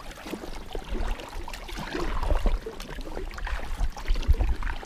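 Double-bladed kayak paddle dipping into the water stroke after stroke, with splashing and water dripping off the blades.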